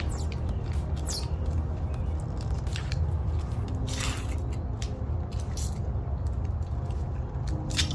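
Scattered crinkles, scrapes and snipping clicks as a punctured lithium-ion phone battery is pried and peeled open, with a steady low hum underneath.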